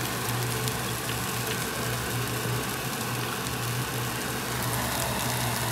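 Marinated pork ribs sizzling on a wire grill over charcoal: a steady hiss with faint scattered crackles, over a constant low hum.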